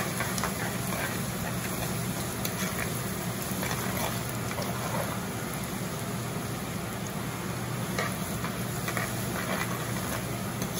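Thinly sliced shallots sizzling steadily in hot coconut oil in an earthen clay pot, with a metal spoon stirring through them and clicking against the pot now and then.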